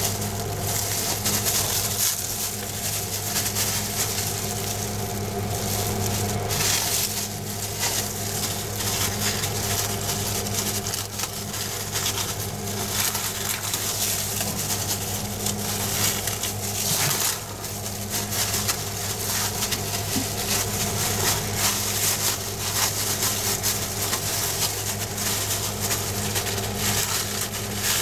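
Continuous crinkling and crackling as hands in plastic gloves press and dab resin-wet 1708 biaxial fiberglass cloth into place, working the air out of the layup. A steady low hum runs underneath.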